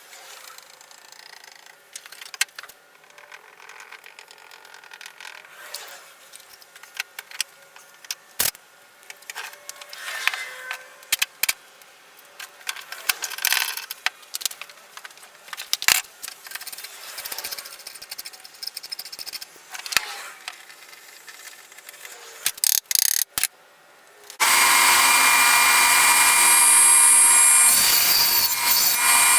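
Scattered clicks and knocks of handling tools and parts, then a power tool starts about 24 seconds in and runs loud and steady.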